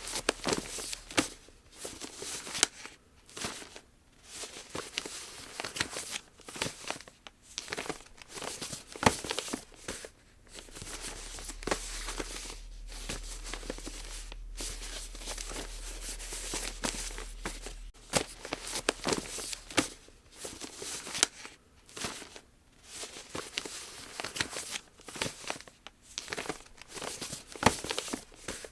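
Origami paper being handled, folded and creased by hand: irregular rustling and crinkling broken by sharp crease snaps. Around the middle there is a stretch of steadier rustling.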